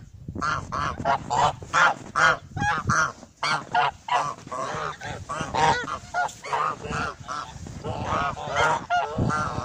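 A flock of domestic geese honking: many short calls from several birds at once, overlapping in quick succession.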